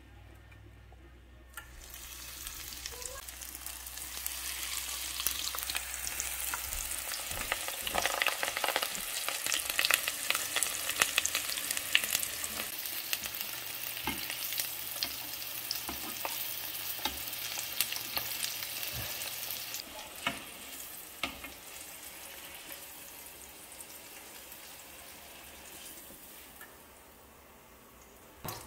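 Breaded asparagus spears deep-frying in hot vegetable oil: a dense crackling sizzle that builds over the first few seconds, stays strong through the middle, then dies down to a faint fizz near the end.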